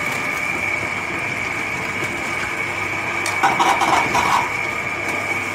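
Tabletop wet grinder running steadily, its motor humming with a high whine as the stone rollers grind soaked black rice and red rice with tomatoes into dosa batter. A short stretch of clatter comes about three and a half seconds in.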